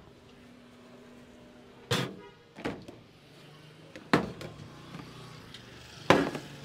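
A few sharp knocks and clatters, about two seconds apart, the first followed by a short rattle.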